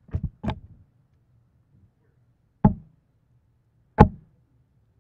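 Two steel-tip darts striking a Winmau bristle dartboard, each a single sharp thud, about a second and a half apart; the second lands near the end. A few light clicks come just before them at the start.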